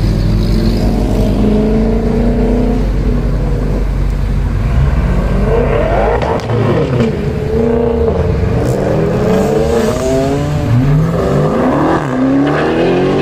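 Red Dodge Charger's engine running with a steady low idle, then revved and accelerated several times over as the car pulls away, its pitch rising and falling with each rev.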